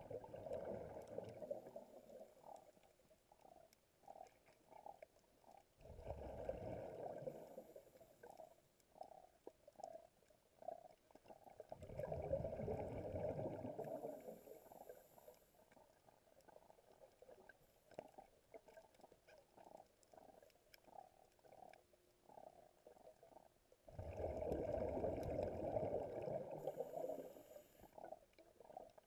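Scuba diver breathing through a regulator, heard underwater: exhaled bubbles burble out in four bursts of two to three seconds each, with quieter stretches between breaths.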